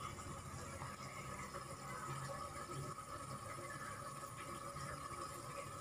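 Quiet room tone: a faint, steady hum with no distinct events.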